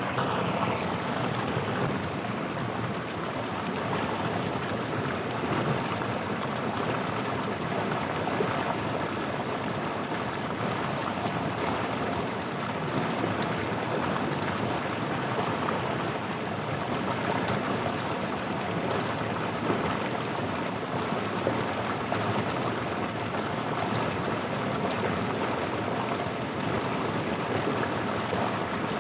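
Floodwater flowing fast through flooded paddy fields, a steady rushing of water.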